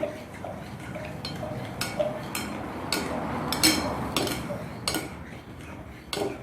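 A spoon stirring slime mixture in a bowl, with a steady stroke about two to three times a second and sharp clicks and clinks where the spoon knocks the bowl.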